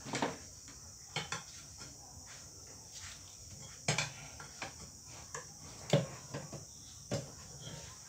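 Irregular metallic clicks and knocks from the metal parts of a ceiling fan and hand tools being handled during repair, the loudest about six seconds in, over a steady faint hiss.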